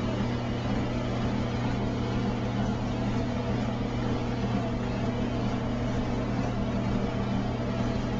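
Treadmill motor and belt running with a steady low hum while someone walks on it.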